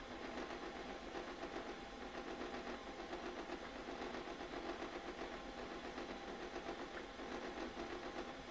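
Artillery Sidewinder X2 3D printer printing honeycomb infill at 40 mm/s: its stepper motors hum in steady tones with a rapid, constant ripple, from the very fast back-and-forth direction changes of the X and Y axes.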